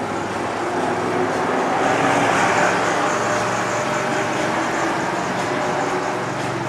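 Steady noise of running engines and traffic, with a few held low engine tones. It swells about two seconds in and eases off again.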